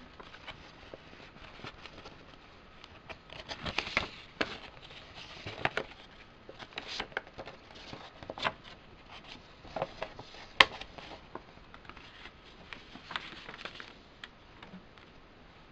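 Printed paper inserts being handled and a folded lyric sheet opened out: irregular rustling and crinkling of paper with scattered light taps, and one sharp click about two-thirds of the way through.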